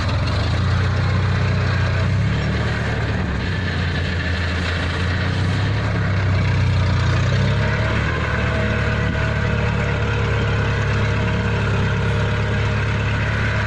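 Kubota farm machine's diesel engine running steadily, a continuous low drone.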